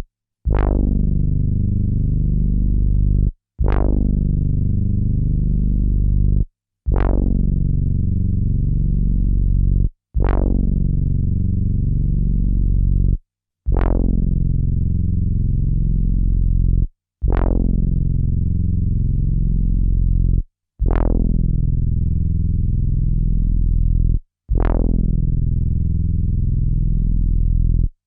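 A synthesizer sample played back from an Akai MPC sampler, the same deep, bass-heavy note triggered about every three and a half seconds. Each hit opens with a bright attack that mellows over about a second, holds, then cuts off into a short silence before the next.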